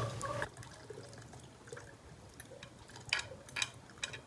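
Hot herbal syrup pouring through a strainer into a container; the stream stops about half a second in, leaving faint dripping and a few light clicks.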